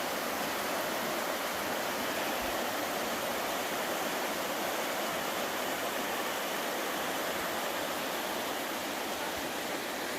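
River rapids rushing: a steady, even roar of white water with no breaks.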